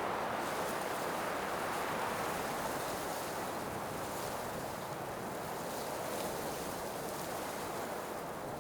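Blizzard wind blowing in a steady, even rush, easing slightly toward the end.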